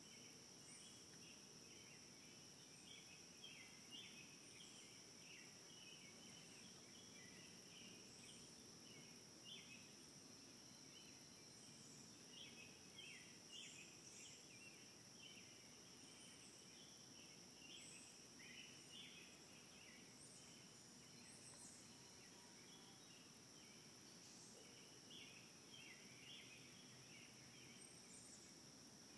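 Faint insect ambience: a steady high-pitched drone with scattered short chirps throughout.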